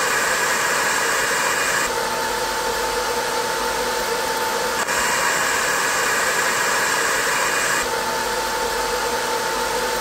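Cooling fan on a 20 W Longer diode laser module running steadily, cut back and forth between two setups: with the stock metal fan guard it has a harsh, high-pitched hiss, and with a laser-cut spacer cover fitted that high-pitched harshness is gone, leaving a steadier, lower tone. The sound switches between the two about two, five and eight seconds in.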